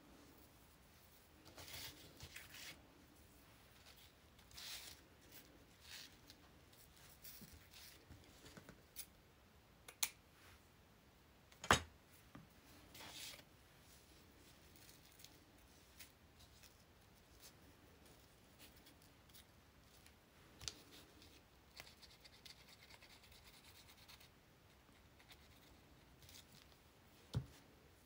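Faint rustling and scraping of paper and lace being handled, with a few sharp clicks, the loudest a little before the midpoint.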